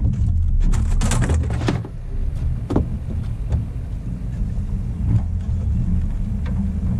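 Steady low rumble of a fishing boat's outboard motor running at slow trolling speed, with a burst of crinkling and clicking about a second in and a few single clicks later.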